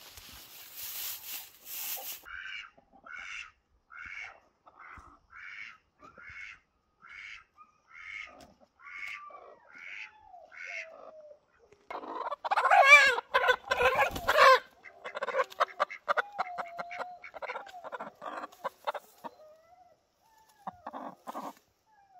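Chicken clucking in an even rhythm, about one cluck every two-thirds of a second, after a brief rustle of straw. About twelve seconds in, it breaks into loud squawking for a couple of seconds, then carries on with rapid clucks and low, drawn-out murmuring calls.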